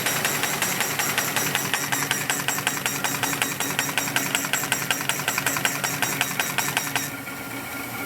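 Heidelberg Stahl B20 paper folding machine running, with a rapid, even clicking of about six a second as sheets feed through, over a steady machine hum; the clicking stops about seven seconds in and the hum runs on.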